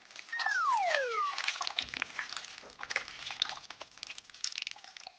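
Slime being squished and worked in the hands: two squeaky falling glides in the first second, then a run of sticky crackles and small pops.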